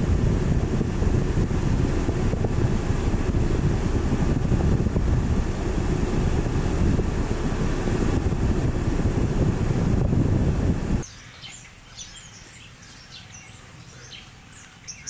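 Loud low rumble of wind on the microphone, cutting off suddenly about eleven seconds in. After the cut, small birds chirp faintly in many short, high calls.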